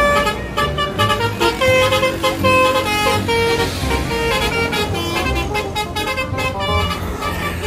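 A bus's multi-tone telolet horn tooting out a quick tune of short notes, over a low engine rumble.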